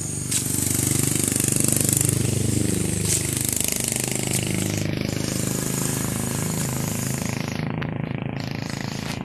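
Motorcycle engine running with a fast, rough pulse, its pitch dipping and rising as the bike rides along a gravel road.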